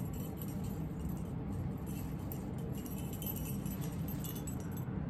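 A cluster of small metal witch bells with charms on a chain jingling and clinking lightly as it is handled and lifted, in scattered small chinks.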